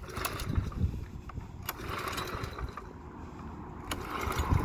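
Pressure washer's small gasoline engine, pull-started on partial choke, catching and running, getting a little louder near the end.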